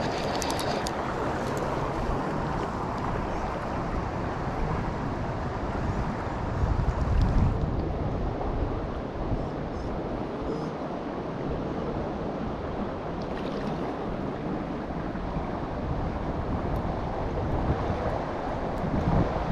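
Steady rush of flowing river water, with wind buffeting the microphone and a stronger gust about seven seconds in.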